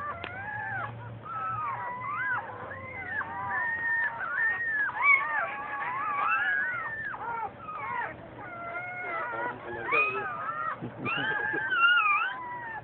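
A litter of newborn puppies crying together: many short, overlapping high calls that rise and fall in pitch, one after another without a break.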